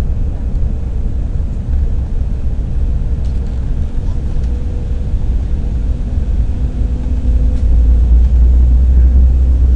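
Steady low rumble of an Embraer E-190 airliner's cabin on approach, from its engines and airflow, with a faint steady hum over it; the rumble grows louder about eight seconds in.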